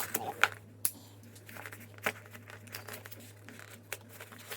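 A knife slicing at the packing tape of a cardboard package, with crinkling and a few sharp scrapes and clicks. A faint steady low hum runs underneath.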